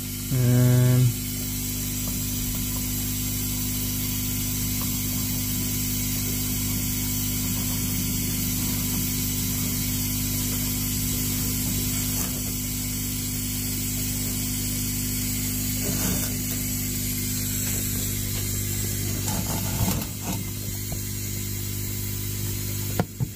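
PTFE thread tape being stretched off its reel and wrapped around threaded pipe fittings, giving a fine ratchety clicking over a steady electrical hum.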